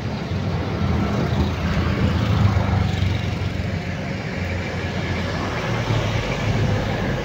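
Steady engine and road noise of a vehicle moving along a town street.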